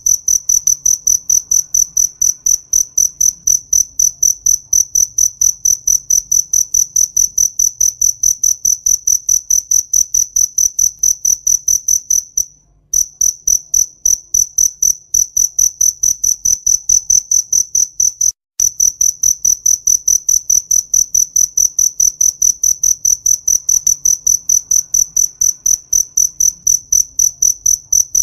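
Cricket chirping: a loud, high-pitched chirp repeated in a rapid, even rhythm, breaking off briefly twice.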